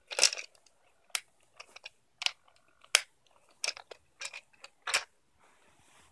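Plastic toy dinosaur figures clattering against each other and the plastic toy box as they are rummaged through, in a string of irregular sharp clacks with rustling between them.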